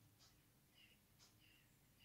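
Near silence: room tone, with a few very faint soft ticks.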